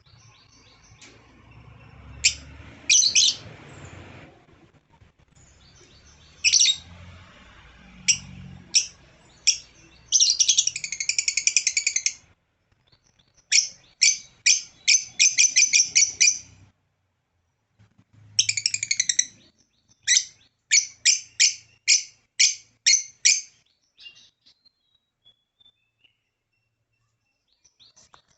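Lovebird calling: sharp, high-pitched chirps in quick series, broken by a couple of rapid chattering trills, then tapering off near the end.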